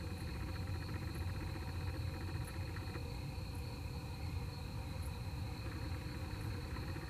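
Night insects, crickets, trilling steadily in high, continuous tones over a low, steady rumble.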